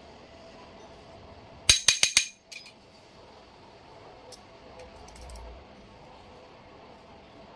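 Metal pieces clinking together: four quick, sharp, ringing clinks about two seconds in, followed by a few light clicks, like steel tools or engine parts knocked together during engine repair work.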